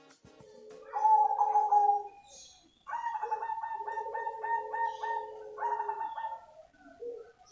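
Cemani zebra dove (perkutut) cooing: a short phrase about a second in, then a longer phrase of quick, evenly pulsed coos from about three seconds in, in two alternating pitches.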